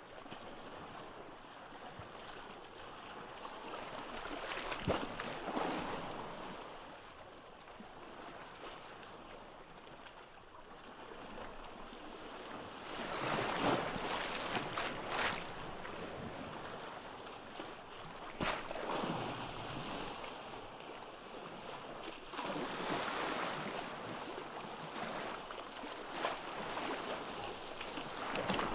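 Ocean waves breaking and washing onto a beach, the surf swelling and falling back every few seconds, with a few sharp splashes as waves break.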